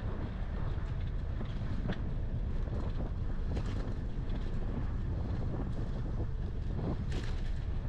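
Wind buffeting the microphone of a camera on a moving bicycle: a steady low rumble, with a few brief rattles or knocks as the bike rides over the road surface.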